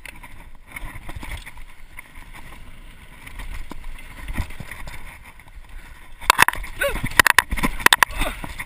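Mountain bike riding fast down a dirt singletrack: tyres rolling on dirt, wind on the microphone and the bike rattling. From about six seconds in there is a burst of loud, sharp clattering knocks, mixed with short pitched sounds, as the bike hits rougher ground.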